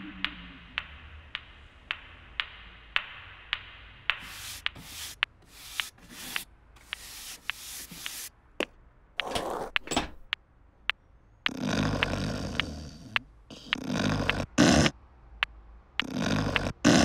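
Newton's cradle clicking steadily, about every two-thirds of a second, as its steel balls strike. From about four seconds in, short scraping noises come in between the clicks, and in the second half there are longer, louder noises a second or two apart.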